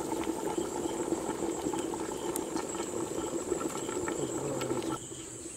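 Wood fire crackling under a lidded pot of fish curry bubbling on it, stopping abruptly about five seconds in. A steady high insect trill runs underneath.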